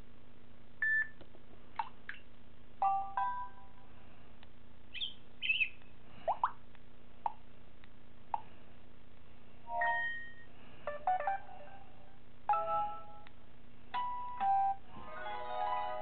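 Samsung Galaxy Core Prime's built-in notification sounds previewed one after another from the phone's speaker. It is a string of short chimes, pops and chirps with brief gaps between them, some rising in pitch, and a busier jingle of several notes near the end.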